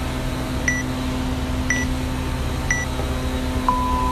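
Workout countdown timer beeping: three short high beeps a second apart, then one longer, lower beep of about a second marking the start of the workout, over a steady background hum.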